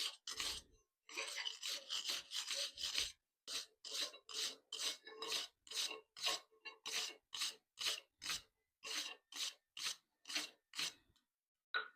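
Wire brush scrubbing back and forth over a forged quarter-inch square steel bar, dense and quick at first, then settling into steady strokes about two or three a second before stopping near the end.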